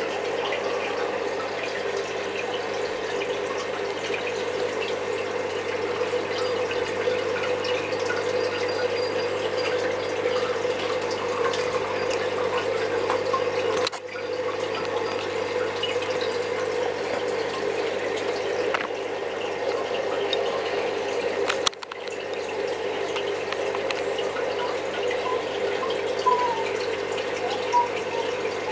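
Steady bubbling and running water of an aquarium's air-driven sponge filter. It breaks off briefly twice, with a sharp click just before the second break.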